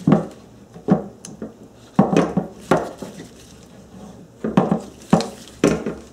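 Irregular metal clinks and knocks from a hand ratchet and socket and the steel transmission cooler lines handled on a wooden workbench, while a screw-type hose clamp is tightened on the rubber cooler hose. The sharp knocks come roughly a second apart, each ringing briefly.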